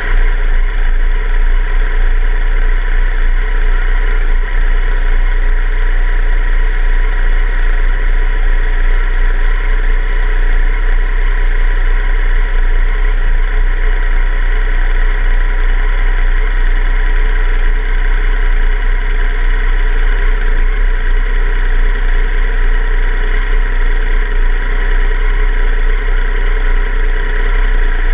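Yamaha FJ-09's inline three-cylinder engine idling steadily, heard close up from the bike's own tail.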